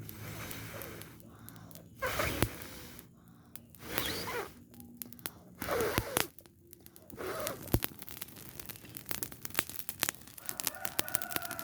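Burning rubbish pile crackling with scattered sharp pops, broken by four short hissing, breath-like bursts about two seconds apart.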